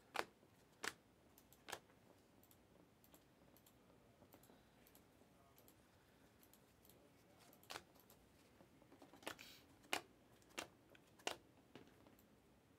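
Panini Mosaic basketball cards being flipped through by hand, each card snapping off the stack with a short, sharp click. There are three clicks in the first two seconds, a few faint ones, then a quicker run of clicks from about eight seconds in, over faint room tone.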